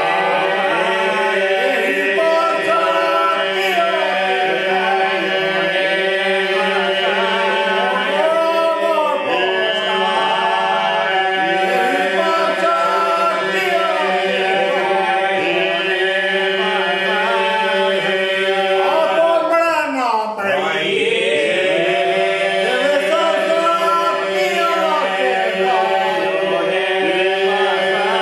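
Albanian men's polyphonic folk singing, unaccompanied: the group holds a steady drone while solo voices carry ornamented melodic lines above it. About twenty seconds in, one voice swoops steeply down in pitch.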